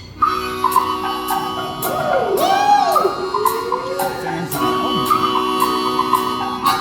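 Live band starting a song's instrumental intro: sustained chords over a steady beat, with a swooping rise-and-fall glide in pitch about two and a half seconds in.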